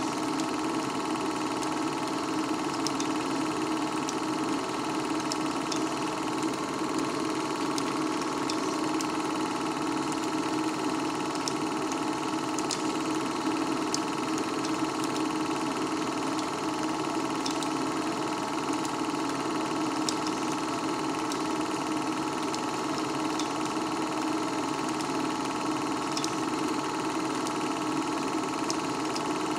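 Film projector running steadily: a constant mechanical hum with faint, scattered clicks.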